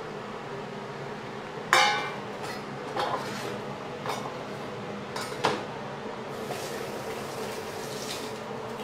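Dishes and bowls clinking and knocking on a kitchen counter, about five sharp knocks, the loudest about two seconds in, then a tap running into a steel sink for a couple of seconds near the end. A steady low hum sits underneath.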